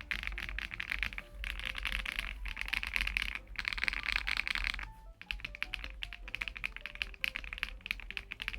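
Fast typing on a LUMINKEY LUMINO75 75% gasket-mount aluminium mechanical keyboard with PBT keycaps: dense runs of key clicks with short breaks and a brief pause about five seconds in. Soft background music plays underneath.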